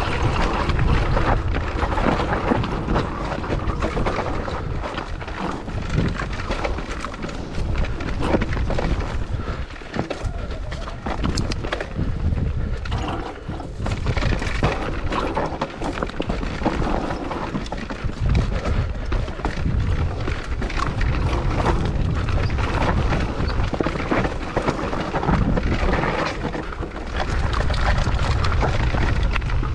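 Mountain bike riding down a rough trail: wind buffeting the microphone as a steady low rumble, with constant rattling and knocking from the bike over the rough ground.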